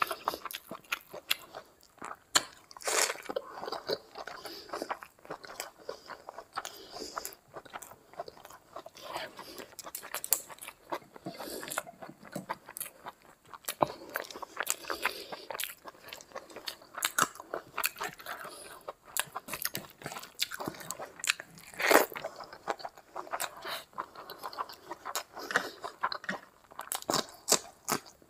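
Close-miked mouth sounds of eating rice and curry by hand: steady wet chewing broken by many sharp, irregular crunchy bites, the loudest a little past two-thirds of the way through.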